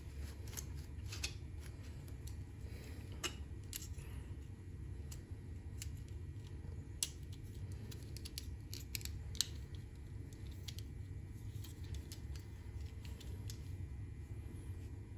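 Small irregular clicks and taps of plastic parts being handled as an N scale freight car's body is fitted onto its frame, over a low steady hum.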